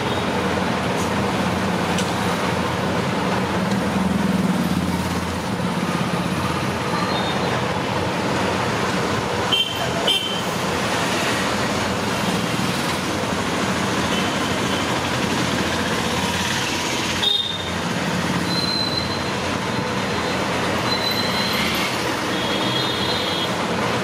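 Steady traffic-like background noise with a few short, high toots.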